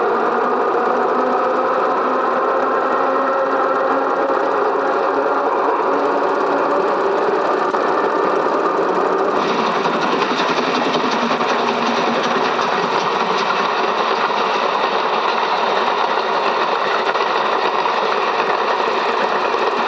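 Cine film projector running with a steady mechanical whirr. About halfway through, a higher hiss joins in.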